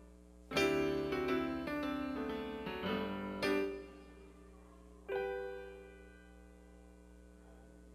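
Piano playing a short passage: a quick run of notes and chords starting about half a second in and ending on a firmly struck chord around three and a half seconds, then one more chord about five seconds in that rings and fades away.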